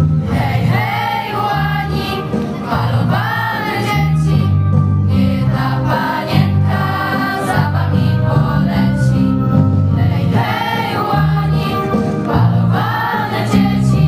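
A group of girls singing a Polish soldiers' song together in unison, over a steady instrumental backing that holds low notes and moves from chord to chord.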